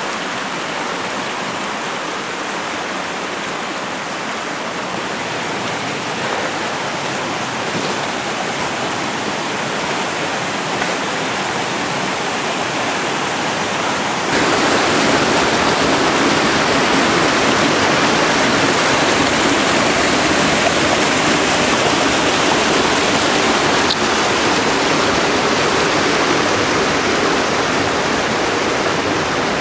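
Shallow stream rushing over rocks and flood debris in a washed-out roadbed, a steady rushing noise that turns suddenly louder about halfway through.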